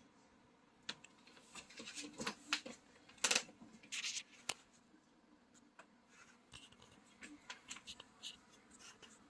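Irregular small clicks and brief scratchy rustles, the sort of handling noise made by hands working a mouse or keyboard or touching the device that is filming.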